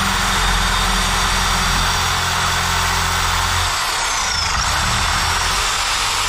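Ridgid reciprocating saw running and cutting through a water pipe. About four seconds in, its speed dips and then picks back up.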